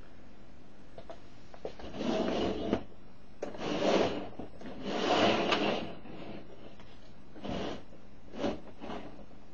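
Clear plastic storage-container boxes being slid and shuffled across a tabletop by hand. There are three longer scrapes in the first six seconds, then a few shorter, lighter ones.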